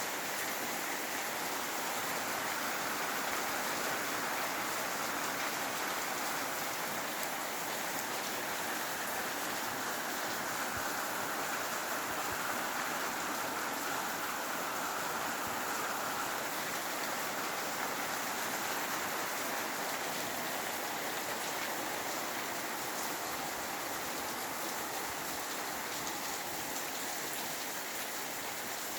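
Steady rain falling: an even, unbroken hiss that holds the same level throughout.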